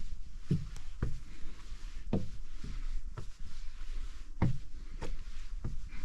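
Footsteps climbing the fire tower's stairs: a run of heavy thuds and knocks, about two a second, in short groups with brief pauses between them.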